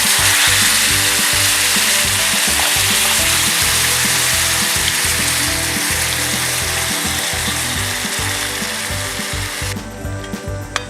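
Food sizzling loudly in a hot pan, a dense steady hiss that starts abruptly and cuts off near the end, over background music.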